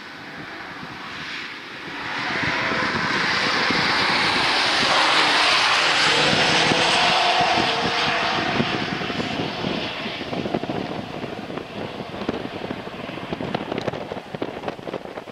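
Two BMW SUV prototypes driving past at speed, their engine and tyre noise swelling about two seconds in, staying loud for several seconds with a slight pitch glide, then trailing off unevenly.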